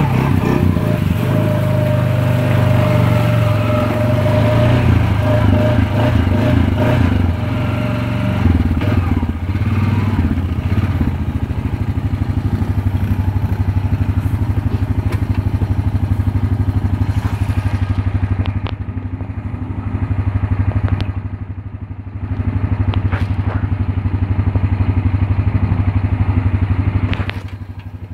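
Honda Foreman ATV engine running steadily as the quad wades through deep pond water, with water splashing and sloshing around it. The splashing hiss dies away about two-thirds of the way through while the engine note carries on.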